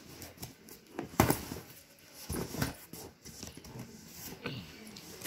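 Cardboard shipping box being handled and turned over, with rubbing and scraping of the cardboard and a few knocks, the sharpest about a second in.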